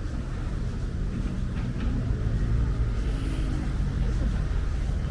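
A motor engine running with a low, steady rumble, its hum a little stronger in the middle.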